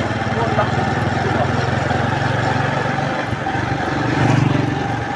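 A steady low motor drone with indistinct voices mixed in.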